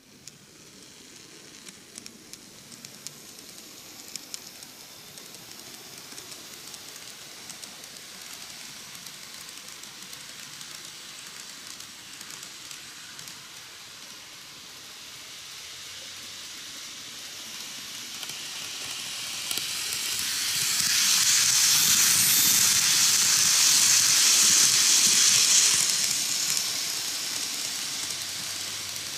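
KATO N-gauge 185 series model train running on its track: a steady hissing whir of the motor and wheels on the rails, with a few light clicks early on. It grows louder as the train comes close, is loudest about three-quarters of the way through, then fades a little.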